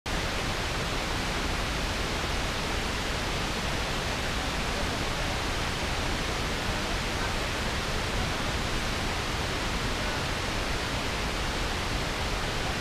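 Steady rushing wind noise on an action camera's microphone while riding a motorcycle, even and unbroken.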